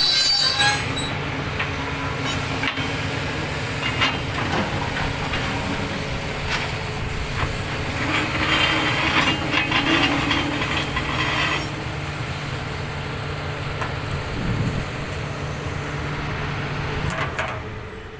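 Excavator's diesel engine running steadily with a low hum, with metallic squealing and scattered clanks of steel on steel, louder in the middle stretch; the level drops near the end.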